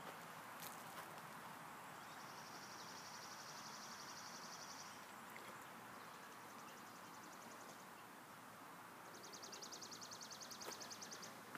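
Faint outdoor background with a high, dry, rapid trill from a wild animal, heard three times for about two seconds each; the last is the loudest.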